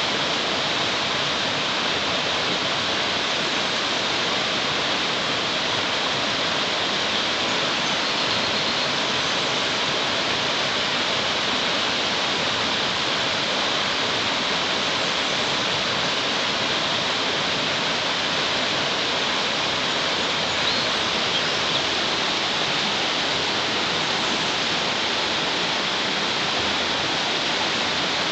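Steady rushing of a shallow stream running fast over rocks in a riffle.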